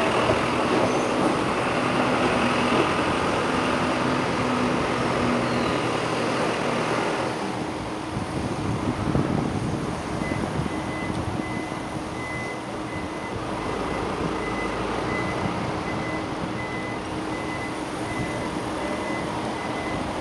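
Shizuoka Railway 1000 series electric train running away along the track, its noise dropping off about seven seconds in. From about ten seconds in, a high beep repeats at an even pace over a quieter background.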